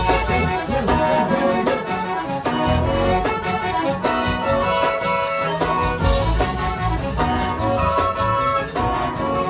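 Live zydeco band playing: accordion chords over electric bass guitar and drum kit, with a steady beat.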